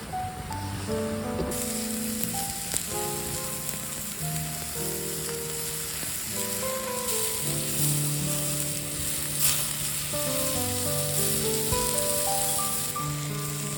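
Meat sizzling as it cooks over a wood fire, the hiss coming in about a second and a half in with a couple of sharp pops, under background music with sustained piano-like notes.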